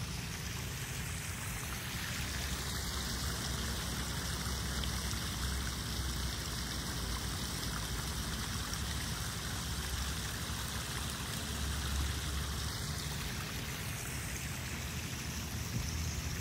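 Small rock waterfall of a koi pond running steadily.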